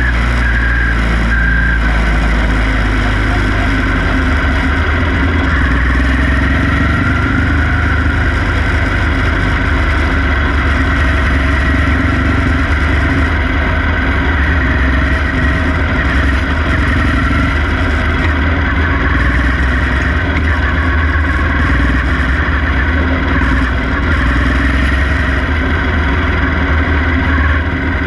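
Quarter midget race car engine heard from onboard, running steadily with little change in pitch, with other quarter midgets' engines running close by.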